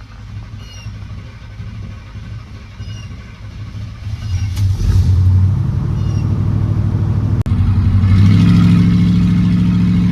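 Car engine running, quieter at first, then brought up to a steady, louder higher-speed run about four and a half seconds in and held there.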